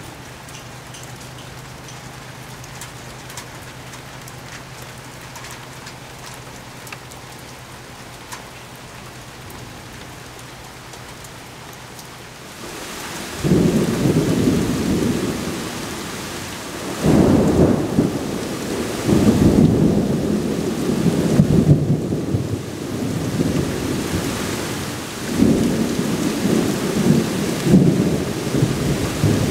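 Heavy rain falling steadily in a thunderstorm. About halfway through, loud rolling thunder rumbles in over the rain and keeps surging and fading.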